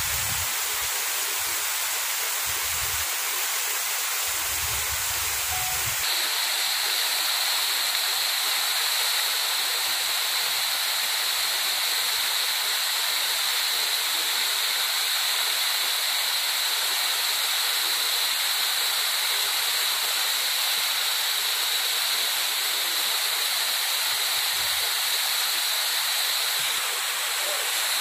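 Small waterfall cascading down stepped rock ledges and splashing onto a flat rock bed: a steady rush of falling water.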